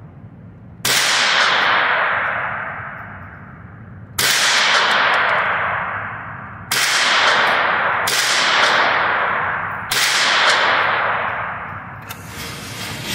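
Five rifle shots, spaced a second and a half to three seconds apart, each followed by a long echo that dies away in the concrete indoor range.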